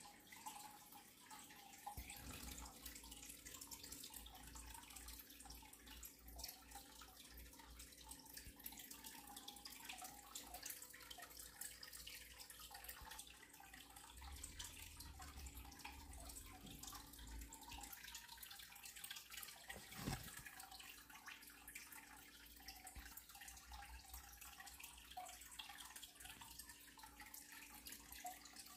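Near silence: faint room tone with a light hiss and scattered tiny ticks, and one soft knock about twenty seconds in.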